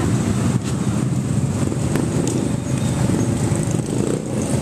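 Steady low rumble of a motor vehicle engine running close by, with a few light clicks.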